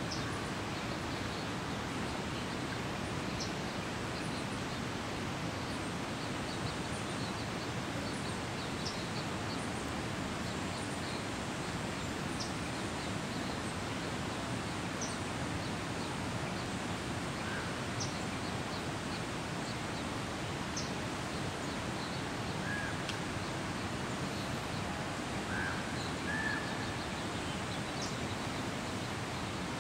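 Steady, even outdoor background noise with faint short bird chirps now and then, a few of them a little louder near the end.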